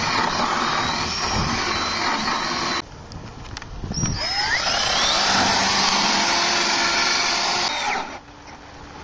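Cordless drill with a hole saw boring into a wooden gate. It runs for about three seconds and stops. About a second later it spins up again with a rising whine and cuts for about four more seconds before stopping near the end.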